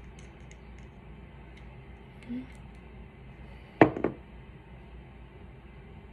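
A glass foundation bottle set down on a tabletop: two quick knocks close together a little under four seconds in, after a few faint clicks from handling its top.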